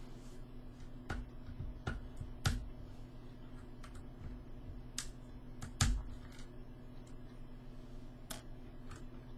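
Irregular sharp plastic clicks and taps from a mechanical keyboard's parts being handled: switches and keycaps being pried and popped apart. The loudest clicks come about two and a half and six seconds in.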